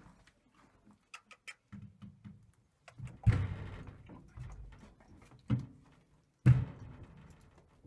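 A horse's hooves stepping onto a rubber-matted trailer ramp: a few light clicks, then three heavy hollow thuds, the first about three seconds in and two more near the end.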